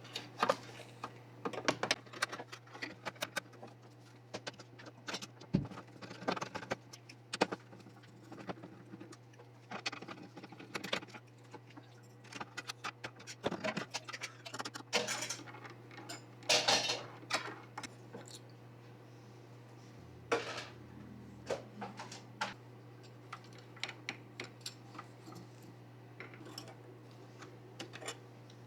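Irregular clicks, taps and light rattles of small hard PC parts being handled and fitted during motherboard assembly, over a steady low hum.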